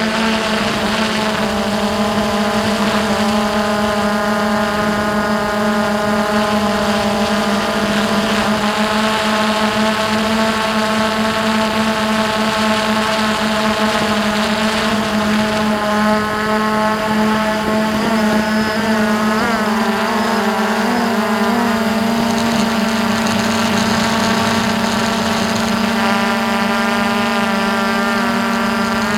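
Hubsan H109S X4 Pro quadcopter's motors and propellers, heard close up from its onboard camera: a steady, loud buzzing whine made of several tones. Some of the tones wander and cross in pitch about two-thirds of the way through as the motors change speed.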